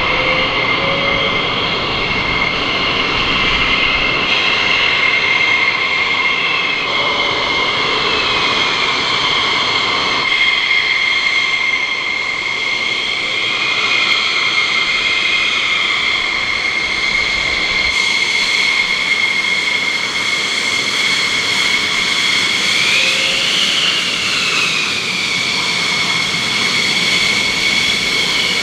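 Jet engines of several F-16 fighter jets running at taxi power: a steady high whine over a rushing roar, with a second whine that rises and falls now and then as the jets roll past.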